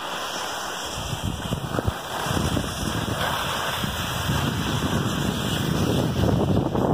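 Wind rushing over the microphone of a camera carried by a skier going down a groomed piste, with skis hissing on the snow. A low rumble comes in about a second in, and the sound keeps growing louder as the skier picks up speed.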